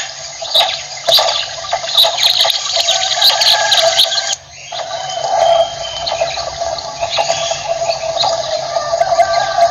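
Common quail calling, a dense run of rapid repeated notes that drops off briefly about halfway through and then goes on more evenly.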